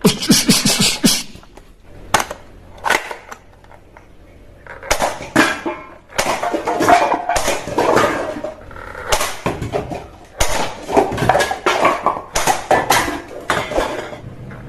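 Hard plastic toy guns clattering and clicking as they are handled, with a sharp burst of noise at the start, a few lone clicks, then dense irregular runs of clatter from about five seconds in.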